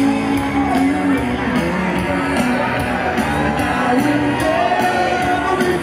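Pop music with a singer, mixed with crowd shouts and whoops.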